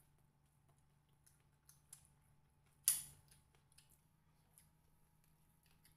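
Close-up eating sounds of people eating rice and stir-fried pork with their hands: faint scattered mouth clicks and smacks, with one louder sharp click about three seconds in.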